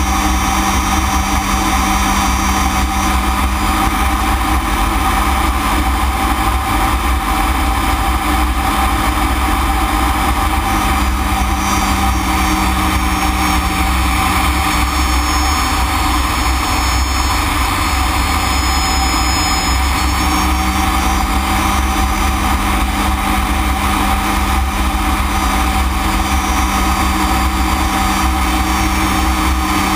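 BAC Strikemaster's Rolls-Royce Viper turbojet running steadily, heard inside the cockpit as a loud drone with air noise and a high whine that wavers in pitch midway.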